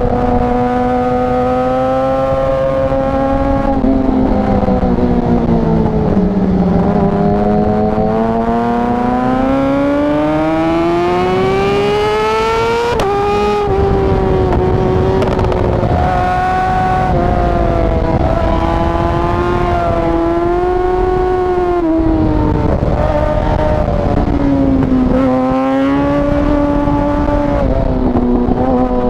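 Yamaha R6 inline-four sport-bike engine heard from on board, its revs falling and rising with the throttle. Around thirteen seconds in, a long climb in pitch drops suddenly at a gear change, and the revs keep rising and falling after it. Steady rushing noise runs underneath.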